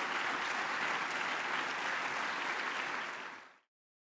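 Audience applauding steadily, fading out quickly near the end.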